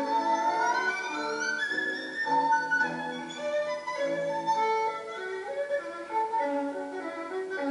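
Instrumental background music: a melody of held notes over a sustained accompaniment.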